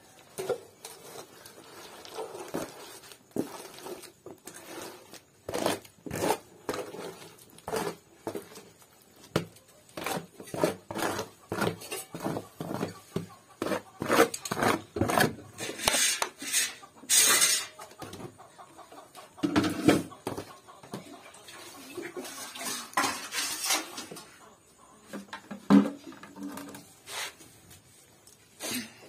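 Steel ladle clinking and scraping against a tray and a steel bowl as thick pickle is stirred and scooped: an irregular run of short clinks and scrapes, with a busier scraping stretch a little past the middle and a few louder knocks near the end.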